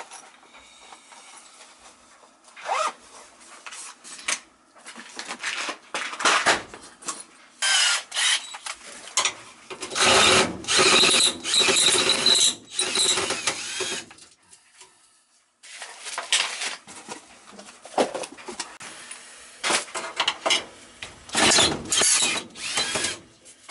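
Cordless drill-driver running in bursts, turning sheet-metal screws on a gas furnace cabinet, with metal clinks and rattles between the runs.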